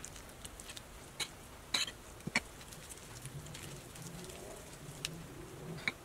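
A metal spoon clicking and scraping against a bowl as plastic-gloved hands scoop and roll sticky oatmeal mixture: a handful of sharp, separate clicks spread over several seconds. A faint low cooing-like sound runs underneath in the second half.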